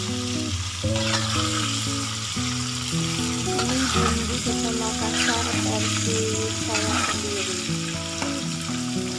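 Peanuts frying in hot oil in a wok, sizzling steadily, stirred with a metal spatula that scrapes the pan now and then. Background music with held notes plays over it.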